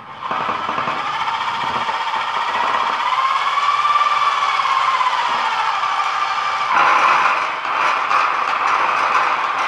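A motor-driven machine running steadily with a rattle. Its pitch sags and comes back up midway, and about seven seconds in it turns rougher and a little louder.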